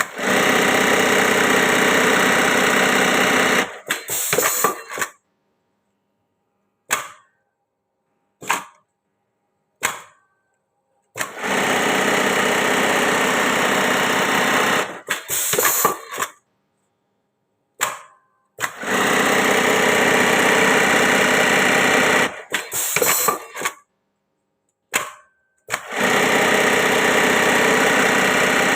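Industrial sewing machine stitching jeans in four runs of about three and a half seconds each, with sharp single clicks and short clattering bursts in the pauses between runs.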